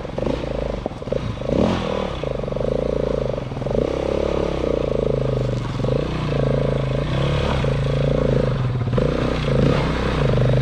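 Dual-sport motorcycle engine running under load on a dirt trail, its note surging and dropping every half second or so as the throttle is opened and closed.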